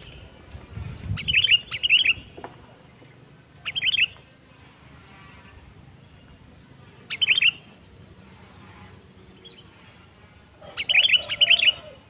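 Sooty-headed bulbul (kutilang) calling: four short bursts of quick, bubbly chirping notes a few seconds apart. The first and last bursts are the longest.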